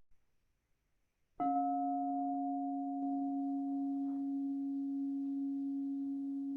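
Crystal singing bowl struck once about a second and a half in, then ringing on steadily with a strong low tone and a fainter higher overtone.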